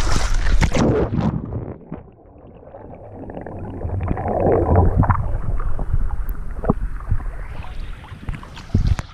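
Pool water splashing and sloshing against a waterproof action camera, with wind on the microphone; about two seconds in the sound turns muffled as the camera goes under the water, with gurgling and bubbling, and the clearer splashing returns near the end as it surfaces. The sound cuts off abruptly at the end.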